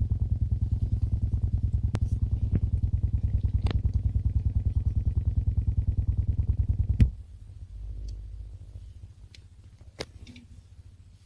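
Rapid, even, low clicking through car stereo speakers, fed from a Xiaomi Redmi Note 2 phone over a jack-to-jack AUX cable. It is the sign of an AUX fault that shows only with the jack-to-jack cable, not with headphones. About seven seconds in it stops with a sharp click, leaving a faint low hum and a few soft clicks.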